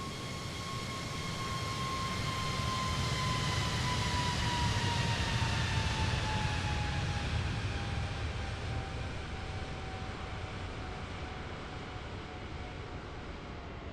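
Jet airliner's engines at takeoff power passing close by: a low rumble under a high whine that slowly falls in pitch as the aircraft goes past. It swells to its loudest about halfway, then fades.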